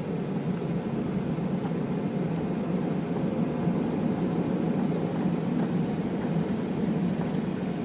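Steady rumble of a Boeing 737-800's CFM56 jet engines and airflow, heard inside the passenger cabin.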